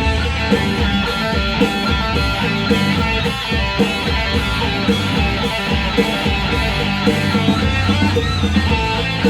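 Guitar-driven rock music with a steady bass line.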